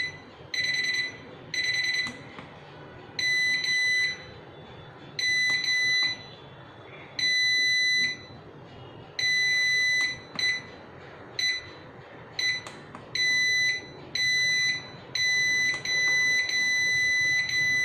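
Digital wall clock's alarm beeper sounding at one high pitch, stepped through its different alarm types: bursts of beeps whose length and spacing change several times, some short and quick, some longer.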